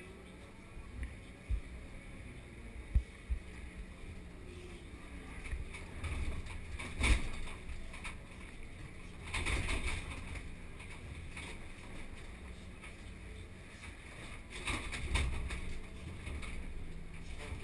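Komatsu PC2000 hydraulic excavator heard from inside its cab: the diesel engine runs with a steady low drone while the machine digs blasted rock. Sharp knocks and bangs of rock against the bucket come through, loudest about three and seven seconds in, and the noise swells several times as the machine works.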